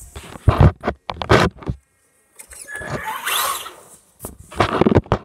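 Radio-controlled car's electric motor whirring in short bursts, rising and falling, as it drives across a wooden floor, with several loud thumps among the bursts.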